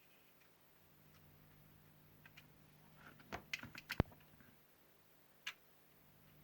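Light clicks and taps of test probes touching the contacts of an LED board: a couple of small ticks, then a quick cluster with one sharper click about four seconds in, and a last tick near the end. They come from probing the diodes one by one to find the burnt-out one.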